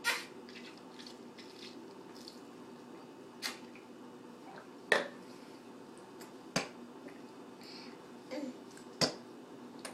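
A handful of short, sharp clicks, spaced a second or more apart, over a faint steady hum; the loudest comes right at the start.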